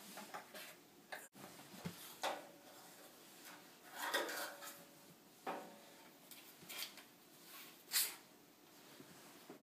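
Scattered small knocks, clicks and rustles of objects being handled, with a rustling patch about four seconds in and a sharp knock near eight seconds.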